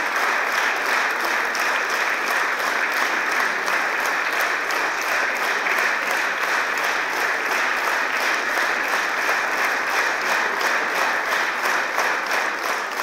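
Theatre audience applauding steadily, the clapping falling into a regular beat.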